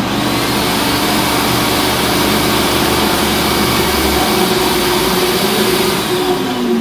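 Aldi WorkZone benchtop bandsaw with a 350-watt induction motor running unloaded, wheels and blade spinning. It is switched off about four seconds in, and its hum drops in pitch as it runs down near the end.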